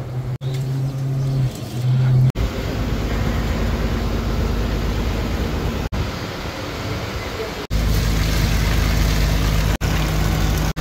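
Fishing boat's engine running with a steady low hum under a noisy wash of wind and sea, broken into several short cuts. From a few seconds before the end, water gushes from a deck hose into a plastic bucket over the engine hum.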